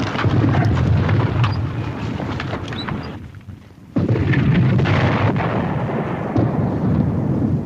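Battle sound: the deep rumble of mortar shells exploding, with scattered gunshots cracking over it. The din falls away briefly about three seconds in, then a fresh blast brings it back sharply about four seconds in.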